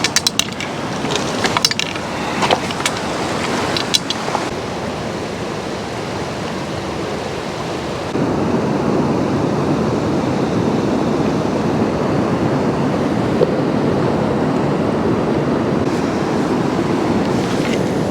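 Steady rush of river water, stepping up suddenly to a louder, fuller rush about eight seconds in. A few sharp clicks or knocks sound in the first four seconds.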